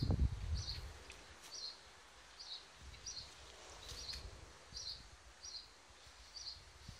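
A small bird chirping over and over, one short high call about every three-quarters of a second. A low rumble in the first second is the loudest thing.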